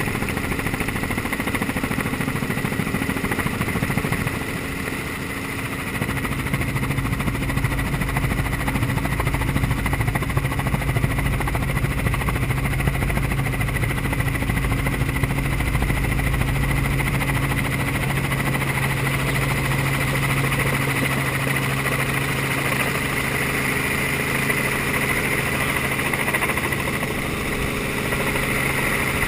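Steady drone of a light helicopter's engine and rotors heard from inside the cabin, dipping briefly a few seconds in before a low hum comes back stronger.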